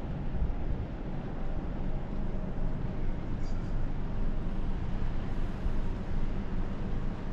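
Steady low rumble and hiss of a cruise ship under way, its engines and ventilation heard from an open upper deck.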